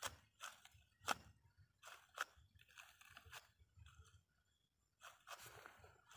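A long-tailed macaque chewing, heard as faint, irregular crisp crunches and clicks. The two sharpest come about one and two seconds in, and there is a short quiet spell near the end.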